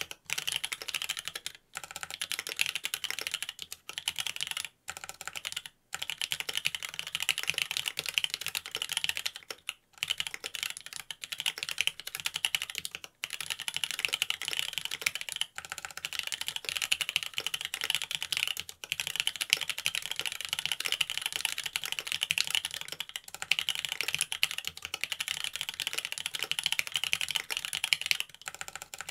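Fast continuous typing on a Mont Cervin mechanical keyboard with Cherry Wyse Black linear switches in a carbon fiber plate, a dense stream of key clacks broken by short pauses every few seconds.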